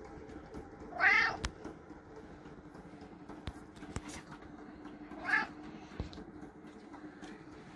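Bengal cat meowing twice: a short, loud meow about a second in and a softer one about five seconds in, with a few faint clicks between them.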